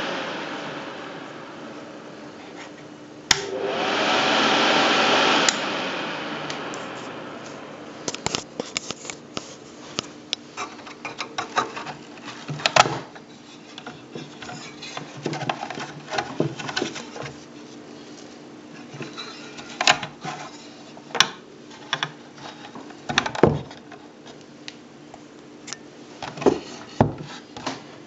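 Sodrtek FX50 soldering fume extractor fan, switched off and winding down at the start. Its switch clicks about three seconds in and the fan spins up again, then clicks off about two seconds later and runs down. After that come scattered plastic clicks and knocks as the unit is handled and turned over.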